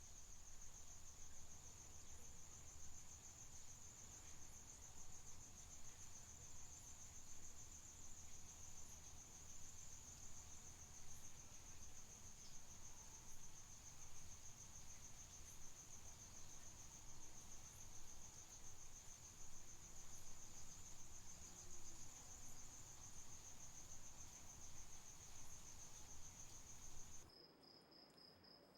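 Crickets trilling, one continuous high trill over a low hum and hiss. Near the end the trill and hum cut off abruptly, leaving a quieter cricket chirping in a slower, evenly spaced pulse.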